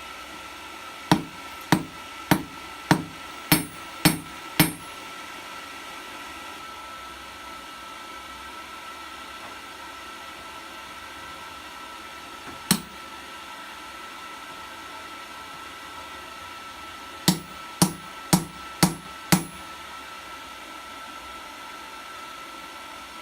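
Hand hammer striking steel rebar in a small blacksmith's forge: a run of seven blows at a bit under two a second, one lone blow, then five more, several with a short metallic ring. A steady whirr with a high whine runs underneath.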